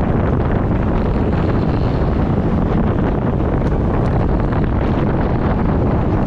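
Steady wind rush on the microphone of a moving bicycle, with road traffic underneath. The handlebar horns are not sounding.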